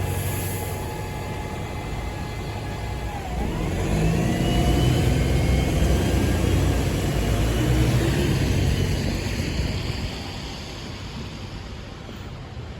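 A London bus pulling away: its engine rumble swells with a rising drivetrain whine about three seconds in, stays loudest for several seconds, then fades as it moves off.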